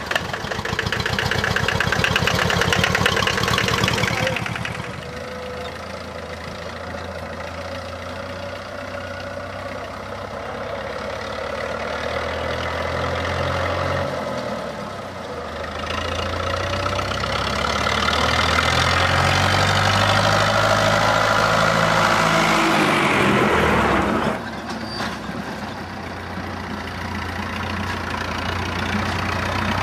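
Tractor engines running. At first an idling engine beats fast and even; then a tractor pulling a trailer of straw sheaves runs along the lane, its engine growing louder as it comes near. The sound drops off suddenly about two-thirds through and rises again near the end.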